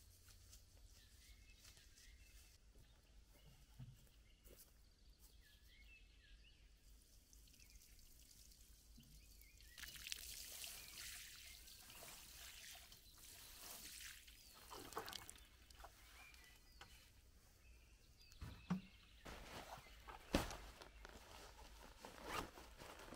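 Water pouring from a plastic watering can onto loose soil, a splashing hiss that starts about ten seconds in and runs for several seconds. Before it there are only a few faint high chirps; near the end, a few sharp knocks.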